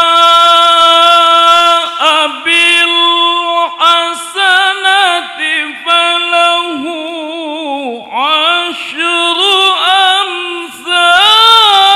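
A male qori reciting the Quran in the melodic tilawah style in a high voice, with no words picked out. He holds a long steady note for about two seconds, then works through quick ornamental runs, with a falling glide about eight seconds in and a rising, held note near the end.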